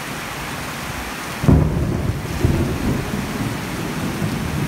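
Heavy rain hissing steadily on the road and shelter roof. About a second and a half in, a sudden loud low rumble of thunder breaks in and rolls on.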